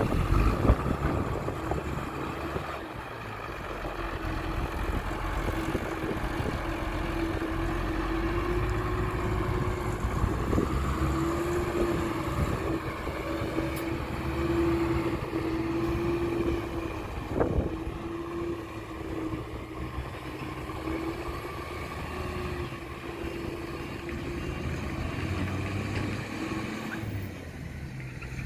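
Heavy diesel earthmoving machinery running steadily, with a wavering whine over the engine rumble and a couple of sharp knocks, one near the start and one about seventeen seconds in.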